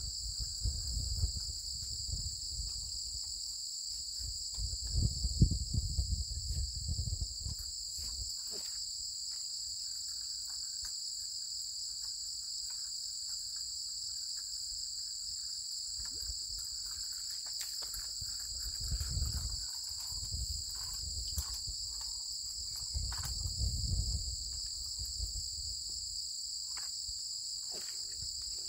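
Insects calling in a steady, even high-pitched trill, with a few low rumbles coming and going.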